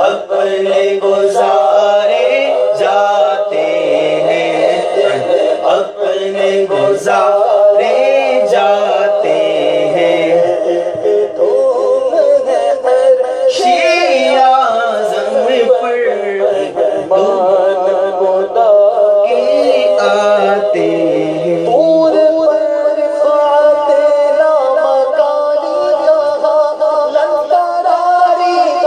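A man's voice singing an Urdu naat, a devotional song in praise of the Prophet, with sustained held notes and continuous melody.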